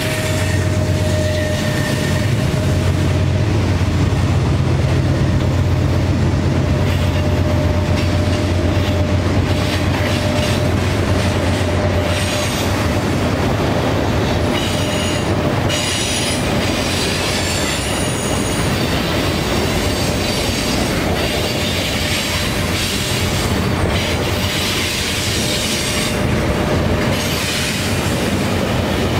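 Freight train working upgrade. The diesel locomotive's engine drone is strong at first and fades out over the first dozen seconds. Then freight cars roll steadily past with wheel clatter and a few brief, high wheel squeals on the curve.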